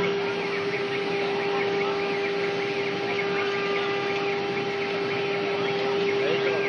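CNC router running while cutting a two-colour engraving board: a steady spindle whine over the hiss of the cut, with brief rising and falling pitch glides from the axis motors as the head changes direction.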